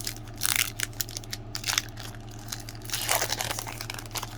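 Hockey trading cards and their pack wrapper being handled: crinkling and rustling with small clicks, louder about half a second in and again about three seconds in, over a steady low hum.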